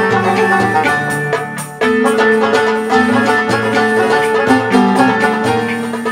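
Instrumental interlude of a live chaabi ensemble: plucked string instruments play the melody over a moving bass line, with a short drop in loudness just before two seconds in.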